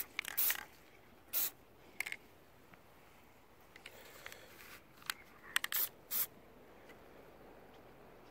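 Aerosol can of Plasti Dip rubber coating sprayed in short bursts. There are several bursts in the first two seconds and a few more about five to six seconds in.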